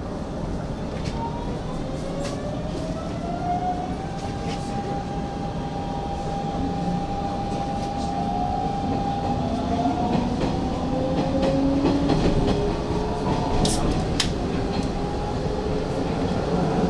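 Hanshin 5500 series electric train running, its VVVF inverter and traction motors whining in several tones that glide up and down in pitch over a steady running rumble. There are a few sharp clicks from the wheels along the way.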